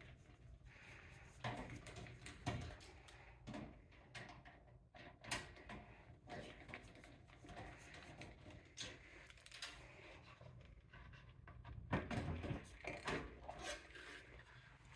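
Faint, irregular clicks, knocks and rustles of hands handling computer parts in a PC case, with a cluster of louder knocks about twelve seconds in.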